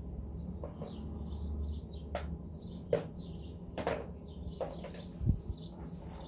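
Small sharp metallic clicks and taps, a screwdriver working the screws on a motorcycle's contact-breaker points plate, with one low thump about five seconds in. Birds chirp throughout in the background.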